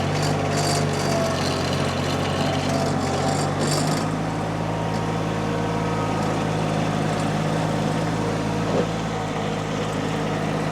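Mini skid steer's engine running steadily under working load, its pitch shifting slightly about four seconds in, with a hissing, squeaky noise over it for the first few seconds.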